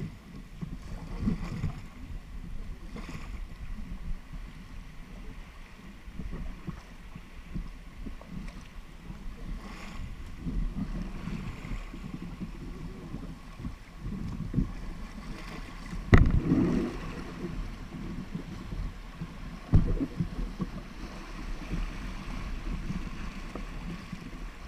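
Kayak paddles dipping and splashing as an inflatable kayak is paddled through rippling river water, with wind on the microphone. A sharp knock comes about two-thirds of the way through, the loudest sound, and a second one a few seconds later.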